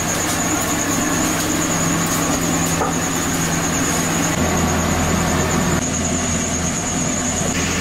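Steady low machine hum under a hissing sizzle as bhaji batter fries in a kadai of hot oil. The texture shifts slightly at cuts about halfway and near the end.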